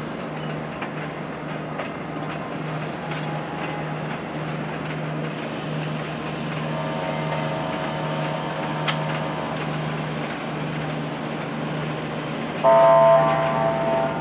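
Railway passenger coaches rolling slowly past over the station tracks with a steady running noise. A fainter drawn-out tone sounds for about three seconds mid-way, and a loud horn blast lasting about a second and a half comes near the end.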